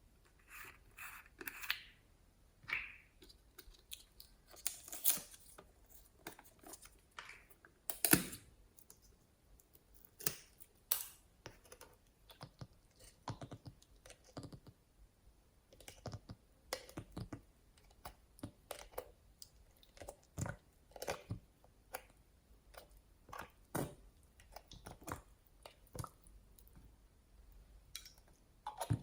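Slime being kneaded and squeezed by hand, giving an irregular run of small wet clicks and pops as air pockets burst.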